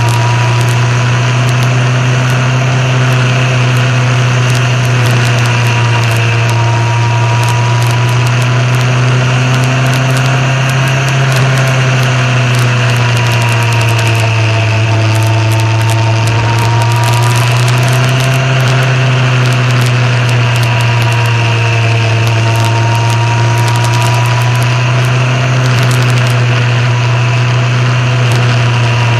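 Motorcycle engine running at a steady cruise, its revs drifting gently up and down, with wind noise crackling on the microphone.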